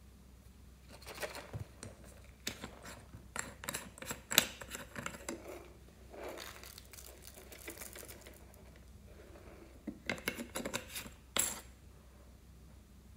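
Hands handling a plastic character toy figure: quick clicks, taps and light knocks in three bursts, with the sharpest click about four seconds in.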